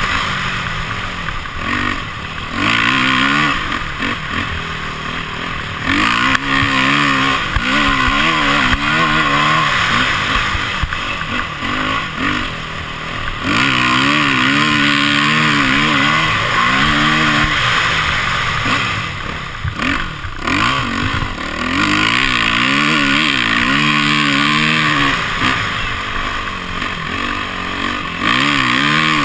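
Dirt bike engine revving up and falling back over and over as the rider opens and closes the throttle around the track, heard close up from a camera mounted on the bike.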